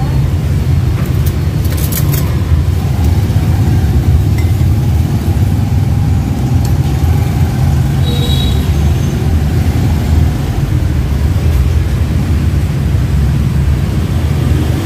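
Steady low rumble of street traffic, with a few faint clicks about two seconds in.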